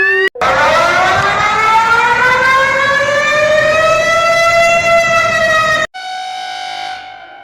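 Civil defense siren winding up, its pitch rising slowly for about five seconds before it cuts off abruptly. A quieter steady tone follows and fades away.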